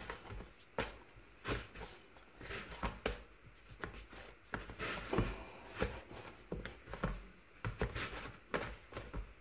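Hand kneading a soft flour-and-oil dough in a bowl, the knuckles pressing and pushing it: irregular soft thumps and rubbing against the bowl, about one or two a second.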